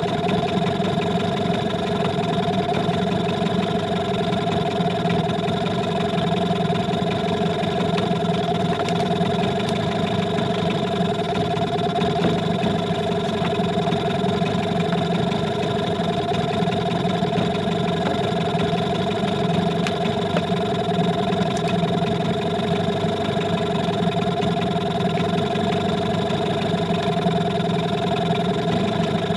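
Boat motor running steadily, a constant hum with no change in pitch or loudness.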